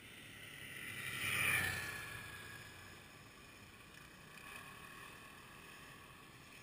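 A vehicle passing by: it grows louder to a peak about a second and a half in, its whine falling in pitch as it goes past, then fades. A fainter second pass follows about four and a half seconds in.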